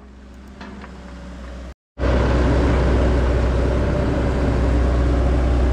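John Deere 120 excavator's diesel engine running steadily while it works, loud and close. About two seconds in the sound drops out for a moment and comes back much louder; before that, fainter steady machine noise.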